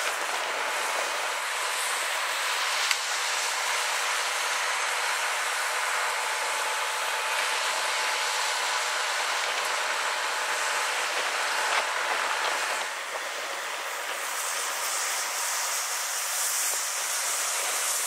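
Steady hiss of traffic tyres on a wet, slushy highway, with a faint steady hum underneath; the hiss turns brighter in the last few seconds.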